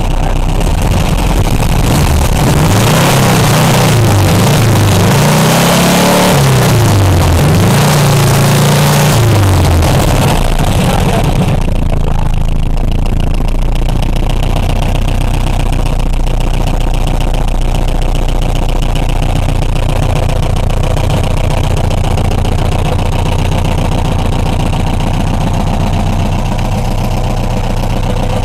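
Engine of a home-built car revved up and down several times, then settling to a steady idle after about ten seconds.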